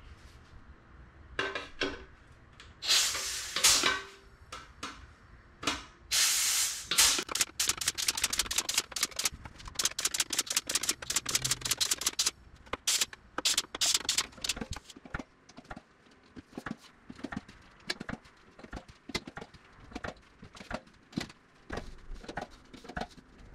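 Aluminium sheet-metal parts being dimpled for flush rivets: a fast, uneven run of sharp clicks from the dimple dies, after two short hisses in the first seven seconds.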